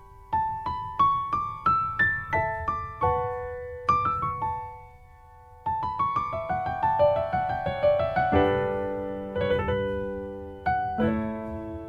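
Solo piano background music: single notes stepping up and down, a short pause midway, then fuller chords.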